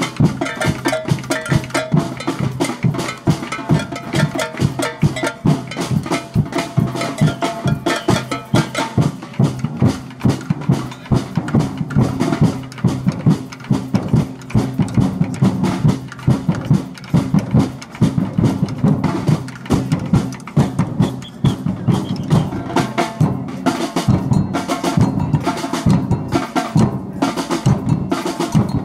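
Samba-style percussion band playing together: large metal-shelled surdo bass drums with snare and other drums, struck in a dense, continuous rhythm.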